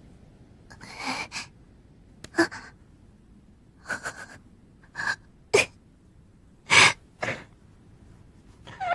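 A young girl crying: short sobbing gasps and sniffles, about eight separate bursts, the loudest about seven seconds in.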